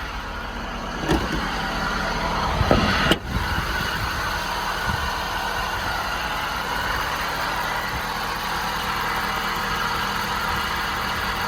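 An engine idles steadily. There is a short click about a second in and a brief knock a little after three seconds.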